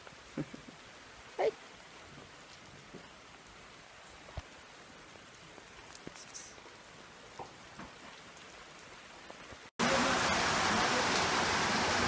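Light rain with scattered drips and a few short sharp sounds. About ten seconds in it switches abruptly to a heavy downpour, a loud steady hiss of rain.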